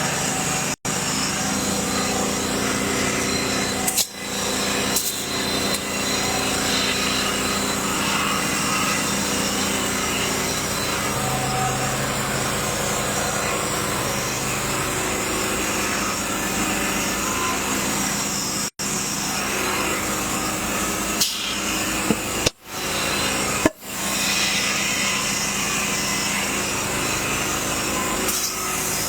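A small engine running steadily, with a few sharp clicks and several brief dropouts in the sound.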